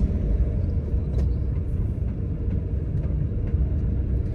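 Steady low rumble of a van's engine and tyres, heard from inside the cabin while driving along a city street.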